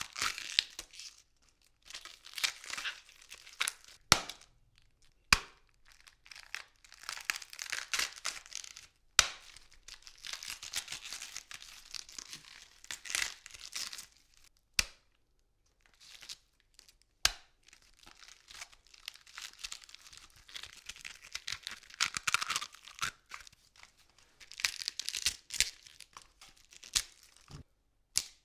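Red cabbage leaves being torn apart and crushed close to the microphone: bursts of wet crackling and crunching, broken by a few sharp snaps of splitting leaf and stem.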